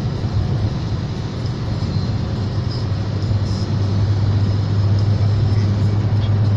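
Car cabin noise at highway speed: road roar with a steady low engine drone that grows louder about four seconds in, as the car pulls out to overtake a truck.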